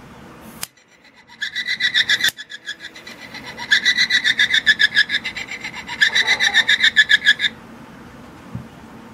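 Tinny electronic sound effect from a novelty skull lighter's built-in speaker: a rapid pulsing buzz played in three bursts, after a sharp click less than a second in.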